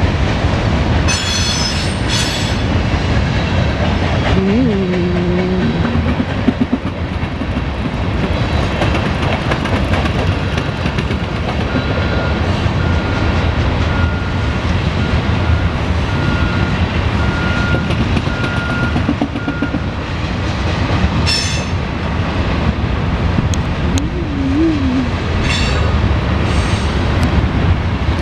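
Norfolk Southern mixed freight train's cars rolling steadily past, with the rhythmic clatter of wheels over the rails. Brief high-pitched wheel squeals come through a few times, near the start and again in the last third.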